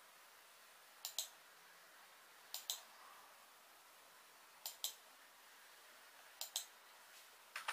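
Rii RK200 wireless mouse button clicking: four pairs of quick, sharp clicks about one and a half to two seconds apart. A fast run of keystrokes on the Rii RK200 keyboard starts right at the end.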